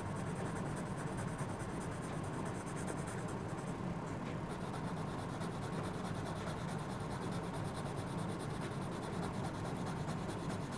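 Yellow coloured pencil shading on drawing-pad paper, a steady rubbing as an area is coloured in.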